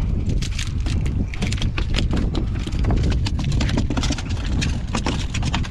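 A speckled trout flopping on a boat deck: a run of irregular slaps and knocks over a steady low rumble.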